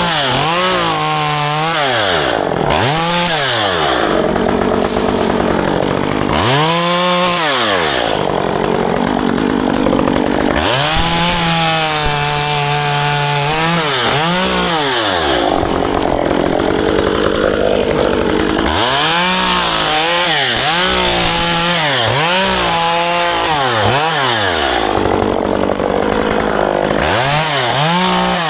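Chainsaw engine running, its pitch rising and falling over and over as the throttle is opened and released while ficus branches are cut back.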